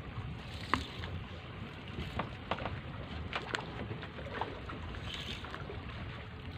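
Steady low rumble of wind and water around a small fishing boat at sea, with a few scattered light clicks and knocks.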